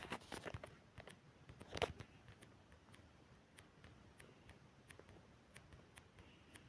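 Faint scattered clicks and light taps, several close together in the first two seconds, then only a few soft ticks.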